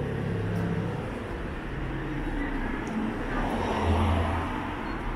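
Street ambience with a car driving past: its engine hum fades away over the first second or so, then a louder swell of noise comes up around four seconds in.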